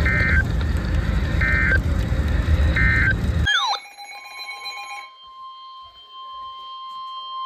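Three short warbling EAS digital data bursts about 1.4 s apart over radio static: the end-of-message code that closes a NOAA Weather Radio alert. The static then cuts off abruptly, and after a brief chirp a faint, steady single-pitch alert tone sounds for about four seconds, the weather radio's attention tone ahead of the next warning.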